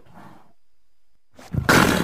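Leopard calling: after a short silence, one loud, harsh call starts suddenly about one and a half seconds in and lasts about half a second.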